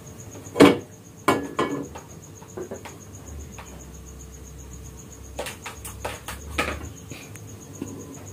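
Gas stove burner flame running steadily under an air rifle barrel that is being heated to loosen its glued joint with the chamber. A few sharp knocks sound over it, the loudest about half a second in and a cluster around six seconds.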